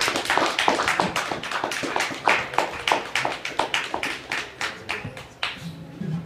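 Audience applauding, a dense run of hand claps that thins out and fades away near the end.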